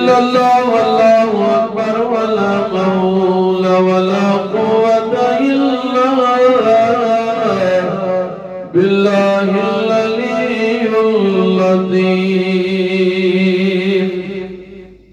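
Man's voice chanting Arabic devotional praise in long, held melodic phrases. There are two phrases with a brief breath about nine seconds in, and the second fades out near the end.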